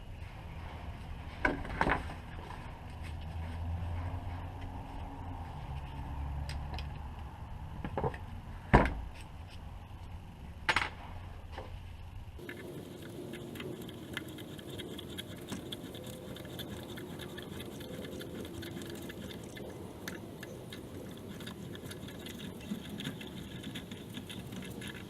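A few sharp clicks and knocks of small metal parts and tools being handled during carburetor repair work, over a low rumble. About halfway through the background changes suddenly to a faint steady hum.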